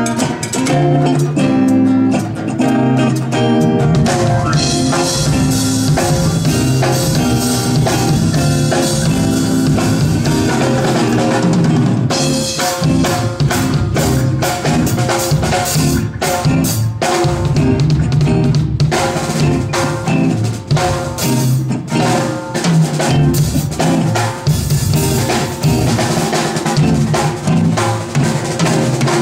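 Live band playing a song: drum kit with snare and bass drum, electric guitar, acoustic guitar and bass guitar.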